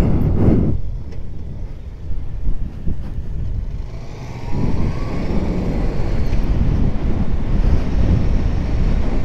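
Motorcycle engine running with wind rushing over the camera microphone; the engine quietens for a few seconds, then pulls louder again about four and a half seconds in as the bike picks up speed.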